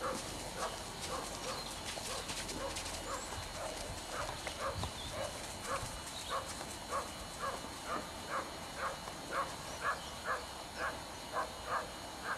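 Horse trotting in an arena: a regular beat of hoofbeats at about two a second, growing more distinct in the second half.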